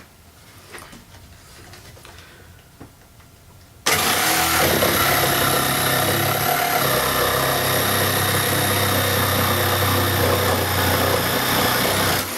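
Parkside PSTDA 20-Li A1 cordless jigsaw cutting through wood on its highest speed setting. It starts suddenly about four seconds in, runs steadily for about eight seconds, and stops abruptly near the end. Before it there are only faint handling sounds.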